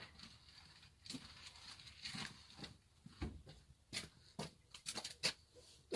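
Faint, scattered knocks and clicks, coming closer together near the end.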